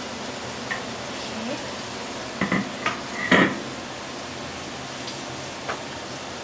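Sliced marrow frying in a pan with a steady sizzling hiss. Several short knocks and clatters of kitchenware against the pan come between two and four seconds in, the loudest about three and a half seconds in.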